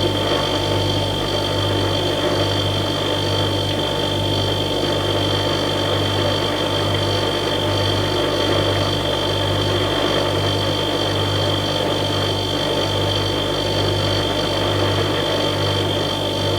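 Refrigerator compressor running: a steady hum whose low drone throbs evenly about one and a half times a second, with faint steady high whines above it.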